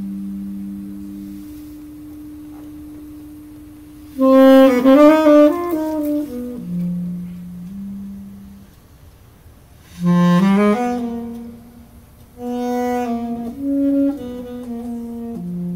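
A saxophone trio playing: long held low notes that overlap, broken by loud flurries of quick notes about four seconds in, again about ten seconds in, and around thirteen seconds.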